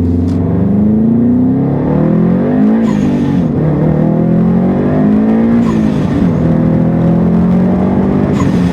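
Subaru STI's turbocharged engine revving up and dropping back about three times, each rev cut off by a short burst of hiss as the throttle closes.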